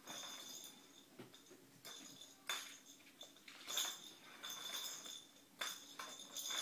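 Ball rolling and knocking around a plastic circular track toy as a kitten bats at it: several sharp knocks, each followed by a brief high ringing.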